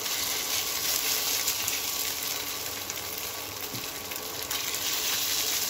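Small spice-coated fish frying in a little hot oil in a nonstick pan, a steady crackling sizzle.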